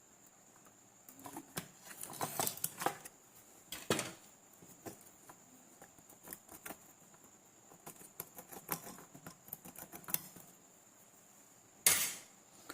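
Scattered small clicks, taps and rustling of hands handling tools and charger parts on a workbench, with a sharper knock about four seconds in and a louder one near the end.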